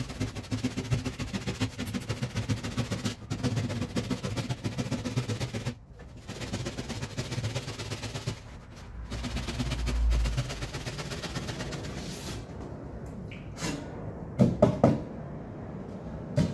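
Keyhole hand saw cutting through a faux stone wall panel, whose body is a light styrofoam-like foam, in quick rhythmic strokes. The sawing stops about twelve seconds in, and a few knocks follow near the end as the cut panel is handled.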